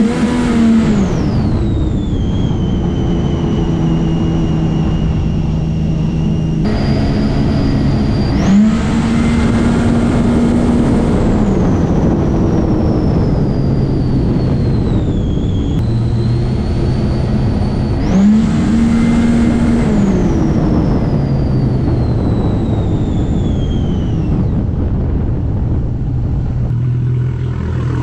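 Supercharged Rotax engine of a Sea-Doo RXP-X racing jet ski accelerating hard three times. Each pull opens with a quick rising rev and a high supercharger whine that slowly falls in pitch as the run goes on. Near the end it drops to a low, steady idle.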